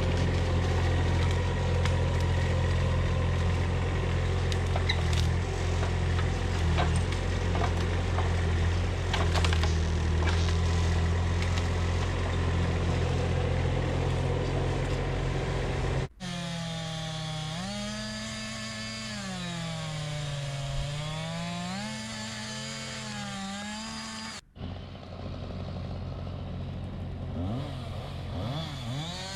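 A small motor or engine running in three spliced sections: first a steady low hum with scattered ticks, then, after a sudden cut, a pitched drone that rises and falls smoothly, then a steadier tone again after a second cut.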